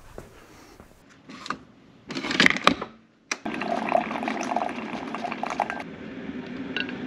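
Some clattering, then a single-serve pod coffee maker dispensing coffee into a mug: a steady hiss and gurgle of pumping and pouring that starts suddenly about halfway through.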